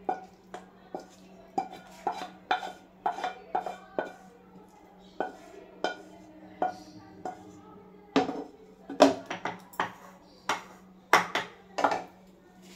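A wooden spatula scraping and knocking against a black non-stick kadai as the fried onion and tomato mixture is scraped out into a steel container. It comes as an irregular run of scrapes and taps, with the loudest knocks in the last few seconds, over a faint steady hum.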